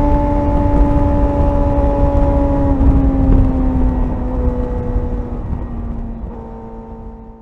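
Suzuki GSR 600's inline-four engine, its note falling slowly and steadily as the motorcycle slows, over a heavy low rumble of wind and road noise. The sound fades out over the last two seconds.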